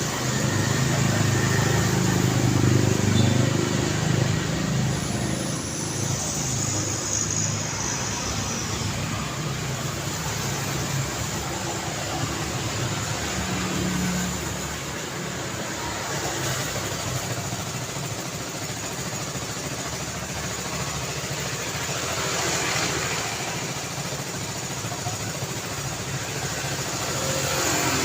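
City street traffic: a steady wash of car engines and tyre noise. A vehicle's engine hum passes close and loudest in the first few seconds, and more cars go by later.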